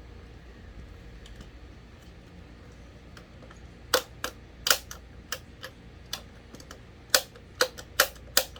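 Sharp clicks and taps, about ten of them at irregular spacing from about four seconds in, from hands working on the parts of an electric fan under repair; faint ticks before them.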